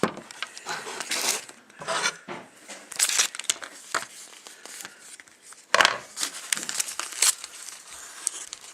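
Packaging being handled and opened, crinkling and rustling in irregular bursts, with a sharp click about six seconds in.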